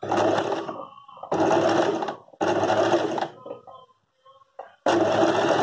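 Usha Janome electric sewing machine stitching in about four short runs of a second or so each, with brief pauses, as the hoop is guided by hand for free-motion embroidery.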